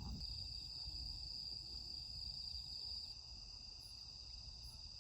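Crickets chirping in a steady, high-pitched, continuous trill, with a low rumble underneath; the whole sound drops a little about three seconds in.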